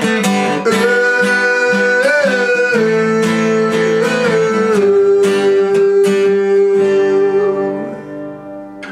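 Acoustic guitar strummed, with a wordless sung line held over it that bends in pitch a couple of times. The playing thins and the sound dies away near the end.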